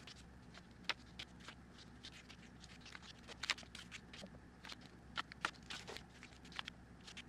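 Paper banknotes being handled and flipped through one by one: faint, irregular crisp rustles and flicks of paper, with a few sharper snaps.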